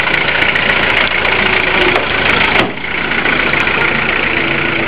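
Engine of a military off-road jeep idling close by, a steady running sound that eases slightly about two and a half seconds in.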